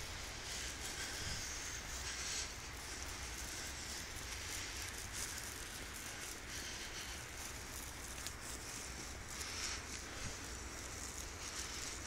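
Wind on a phone microphone in a snowstorm, a steady low rush with a high hiss, with soft rustling and scattered light crackles.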